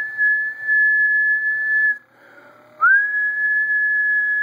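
Amateur radio transceiver sending a tune-up carrier into the manual antenna tuner at about half power, its speaker giving a steady high whistle-like tone. The tone opens with a quick upward slide and runs about two seconds, stops briefly, then keys again just under three seconds in. The tuner reads a good match at this point.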